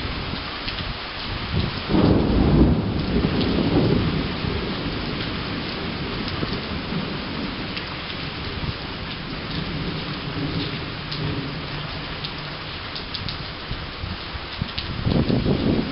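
Steady rain falling, with scattered drips ticking. A rumble of thunder comes in about two seconds in and dies away over a few seconds, a fainter rumble follows midway, and another begins near the end.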